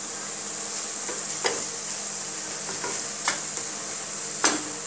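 Taro-leaf curry sizzling in a frying pan as it is stirred, the utensil scraping and knocking against the pan about five times, the loudest knock near the end.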